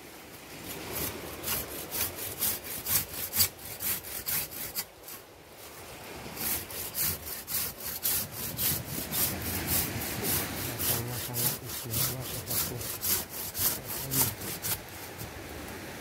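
Hand saw cutting back and forth through a woody tree root at about two to three strokes a second, pausing briefly about five seconds in before carrying on.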